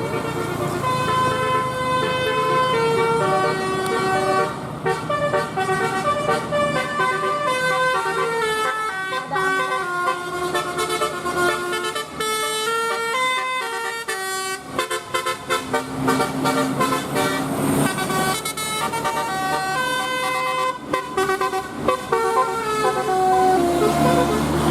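Bus 'telolet' multi-tone horn playing a quick melody of stepped notes, over a low engine rumble.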